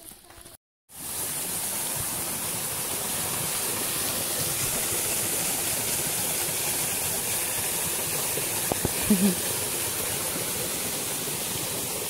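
Creek water running steadily over rock ledges and around boulders, a small waterfall cascade; it sets in abruptly about a second in.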